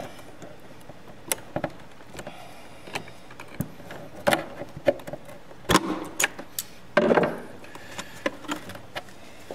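Needle-nose pliers and fingers pulling insulated spade connectors off the terminals of an electrical switch. Scattered small clicks and scrapes of metal and plastic, with a slightly longer rustle about seven seconds in.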